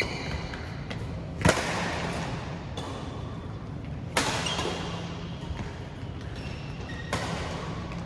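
Badminton rackets striking a shuttlecock in a rally: three sharp hits about two and a half to three seconds apart, each with a short echo.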